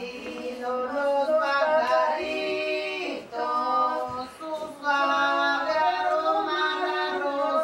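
Women's voices singing a slow song together unaccompanied, in long held notes with short breaks between phrases.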